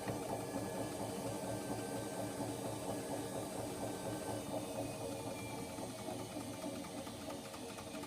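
Washing machine on its spin cycle, running with a steady mechanical drone.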